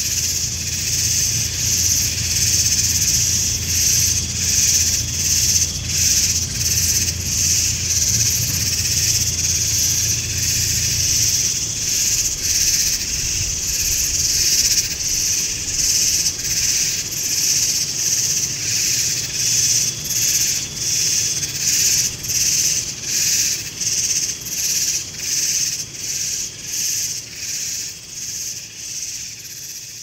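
Evening chorus of insects: a loud, high-pitched, rhythmic drone of many callers, swelling and fading about one and a half times a second. A low hum lies under it for the first third, and the whole chorus fades out at the end.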